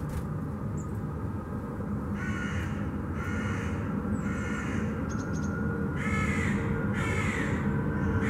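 A crow cawing four times, in two pairs about a second apart, over a steady low background rumble.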